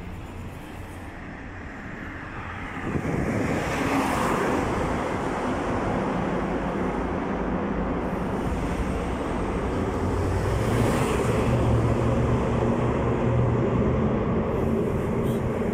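Road traffic on a multi-lane road: a steady rumble of passing cars that grows louder about three seconds in, with a car passing close about four seconds in and another near eleven seconds.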